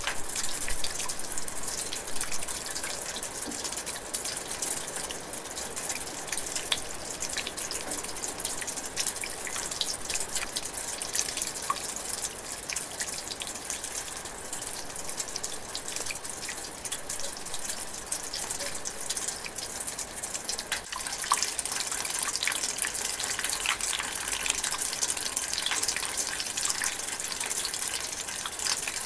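Light rain drizzling: a steady hiss of rainfall with many small close drops dripping, a little louder in the second half.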